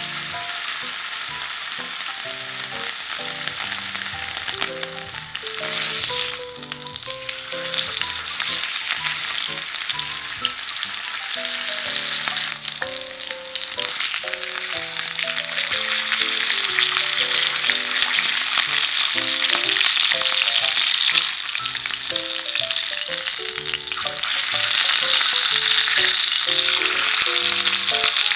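Top blade beef steak searing in oil in a cast-iron skillet: a steady sizzle that gets louder about halfway through and again near the end.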